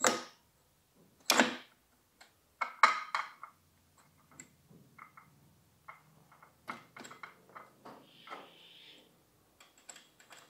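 Metal clicks and knocks of the exhaust camshaft, its sprocket and the timing chain being handled and seated in a KTM 390 engine's aluminium cylinder head. Three louder knocks come in the first three seconds, then lighter clicks and chain rattles, with a brief scrape about eight seconds in.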